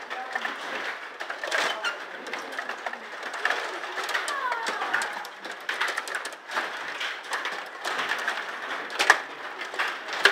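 Stiga table hockey game in play: a busy run of clicks and clacks from the rods being pushed and twisted and the plastic players striking the puck, with a sharper knock about nine seconds in.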